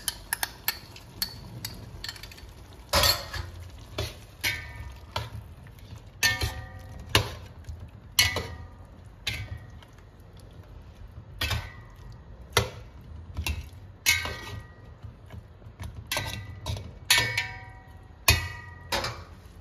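Metal slotted spatula stirring chicken and curd in a hammered copper pot, its edge knocking and scraping against the pot in irregular clinks, some ringing briefly.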